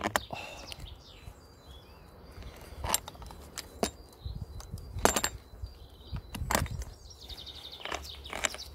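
Scattered sharp clicks and clinks of chainsaw parts being handled and fitted, about six over several seconds, with birds chirping faintly in the background.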